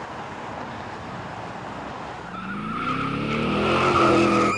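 Road and engine noise inside a truck cab at motorway speed. About halfway through, a pitched squeal grows louder and climbs slightly in pitch.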